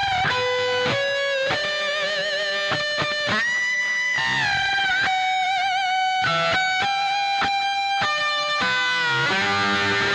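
Music: a lead guitar melody of held, wavering notes with bends, turning fuller and denser near the end.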